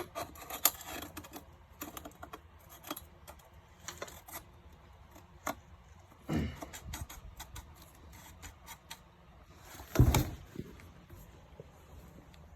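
Irregular clicks and knocks of a portable toilet chair's parts being handled and fitted together, with a heavier thump about ten seconds in.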